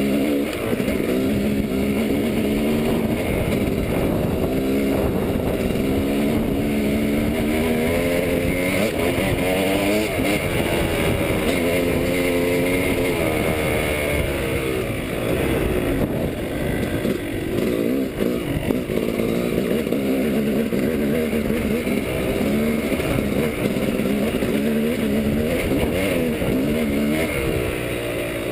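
Yamaha dirt bike engine running under load. Its pitch rises and falls repeatedly as the throttle is opened and closed.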